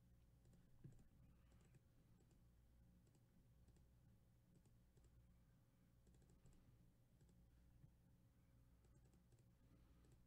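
Near silence with faint, scattered clicks of a computer mouse.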